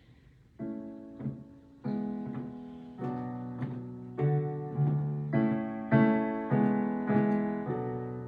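Piano playing a slow series of chords as a song's instrumental opening. Each chord is struck and left to ring, starting about half a second in, with a new chord roughly every half second to second.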